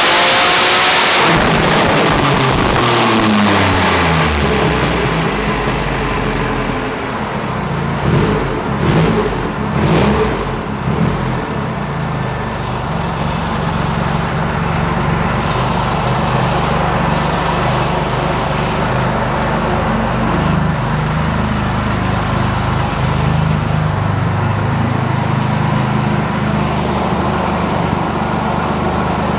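Supercharged 2.5-litre three-cylinder Triumph Rocket 3 engine at full throttle at the top of a dyno run. About a second in the throttle shuts and the revs fall away over a few seconds. After a few short louder bursts around eight to ten seconds in, it settles to a steady idle.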